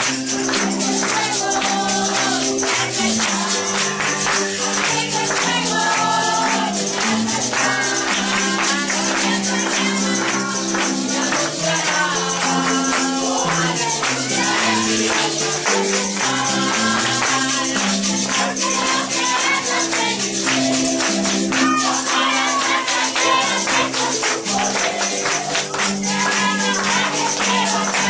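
Worship band music: a tambourine shaken in a steady rhythm over sustained bass and chord notes, with voices singing along.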